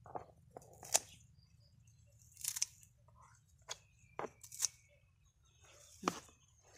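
Scissors snipping through bunches of water celery stems, several crisp cuts at uneven intervals.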